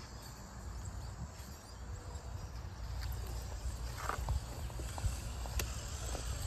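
RC rock crawler climbing over granite boulders: tyres scrabbling and knocking on the rock over a low steady rumble, with a few sharp clicks about three, four and five and a half seconds in.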